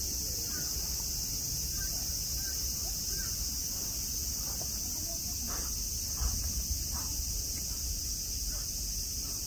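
Summer cicadas in a steady chorus, one unbroken high buzz.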